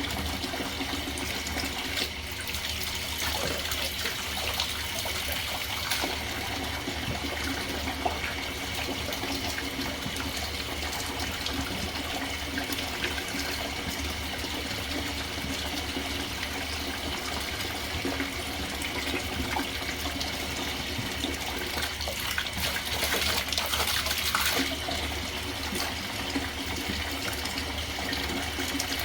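Tap water running steadily into a sink, with a few brief knocks and a louder splashing stretch a little before the end.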